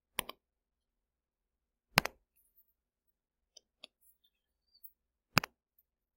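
Three sharp single clicks about two seconds apart, with a few faint ticks between them.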